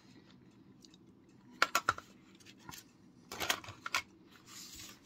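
A spoon clicking and scraping in a plastic cottage cheese cup, in two quick runs of light clicks. A short soft rustle follows near the end.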